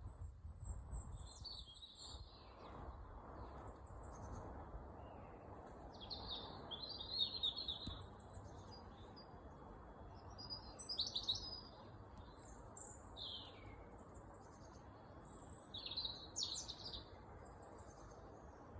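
Birds chirping and singing in short, high phrases, a few louder bursts about 7, 11 and 16 seconds in, over steady low background noise.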